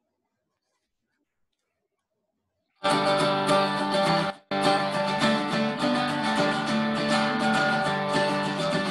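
Silence, then about three seconds in, a strummed acoustic guitar accompaniment in a country style starts suddenly and carries on steadily, with a momentary drop-out about a second and a half after it begins.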